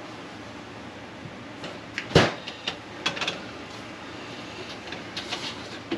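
Handling noise: one sharp knock about two seconds in, followed by scattered light clicks and taps, over a steady low hum.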